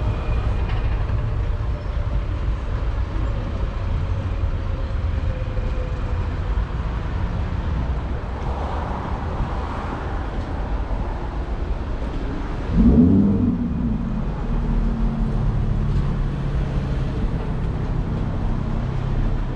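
City street traffic: a steady rumble of passing vehicles. About two-thirds of the way in, a nearby vehicle engine surges loudly, then keeps running with a steady hum.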